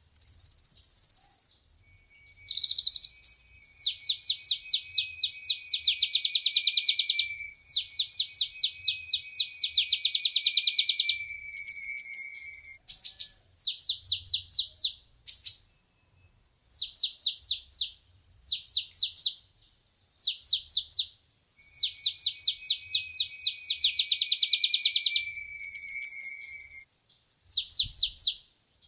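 Sunbird (the 'kolibri ninja' of Indonesian bird keepers) singing: high-pitched rapid trilled phrases, each one to three and a half seconds long, repeated with short pauses and sharp single chips between, the longer phrases carrying a thin lower whistle beneath.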